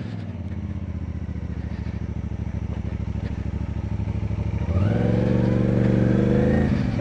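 Motorcycle engine running steadily, then revved up about three-quarters of the way through and held at higher revs, growing louder.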